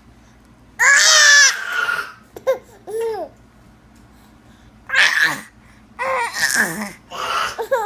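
Children making silly, scary-sounding voice noises and laughing in short bursts. A loud, high shriek comes about a second in, then a couple of short rising-and-falling squeals, and several more shrieking, laughing outbursts in the second half.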